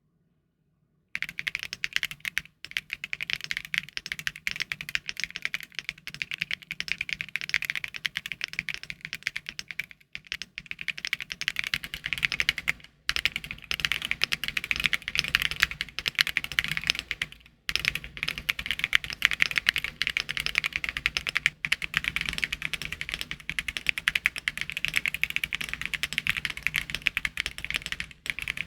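Fast typing on a Luminkey 65 aluminium 65% mechanical keyboard with Gateron Sylva linear switches, built with all its foams in. The quick, dense keystrokes start about a second in and stop for a moment a few times.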